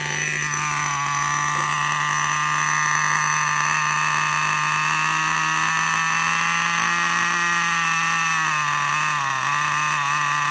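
Small two-stroke nitro engine of an RC monster truck idling steadily with its fuel line pinched off to starve it. Near the end the pitch dips and wavers as the engine begins to run short of fuel.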